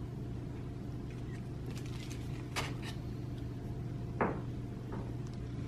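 Low steady room hum with a few small clicks and knocks of handling, the loudest about four seconds in.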